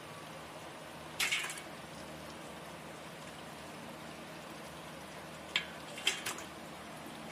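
Water splashing in a stainless steel bowl as live freshwater prawns are lifted out and dropped back in: one splash about a second in and a quick cluster of splashes near the end, over a steady low background sound.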